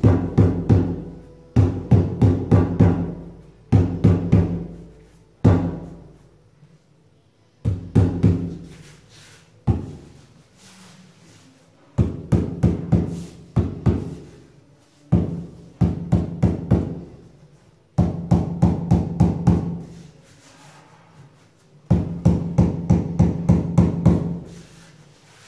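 Hand pounding on a large porcelain floor tile laid in flowable thick-bed tile adhesive: bursts of quick, low knocks, about five a second, repeated every couple of seconds with short pauses, bedding the tile down into the adhesive.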